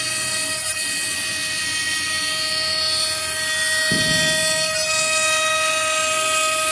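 The spindle of an AKG1212 CNC router runs at a steady high whine while the machine moves the bit along its toolpath, cutting a wood-fibre board. There is a brief low thump about four seconds in.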